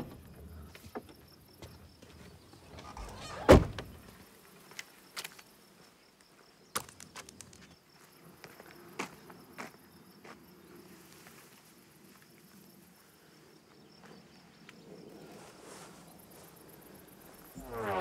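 Quiet forest road ambience with faint insects buzzing. A car door shuts with a thunk about three and a half seconds in, followed by scattered footsteps on the asphalt. A rising sweep comes in at the very end.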